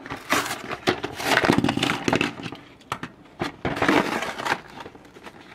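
Hot Wheels blister package being torn open: the clear plastic blister and tray crackle and snap, and the cardboard card tears. It comes in irregular bursts, loudest about a second and a half in and again about four seconds in.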